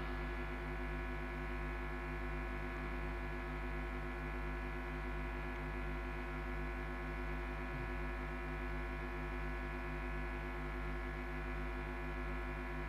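Steady electrical hum and buzz from a public-address sound system, many fixed tones held without change, with a slow wavering in the lower ones.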